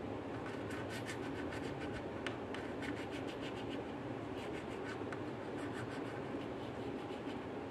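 Scratching: a couple of seconds of quick, dry scratchy strokes, then a shorter run about four seconds in, over a steady background hiss.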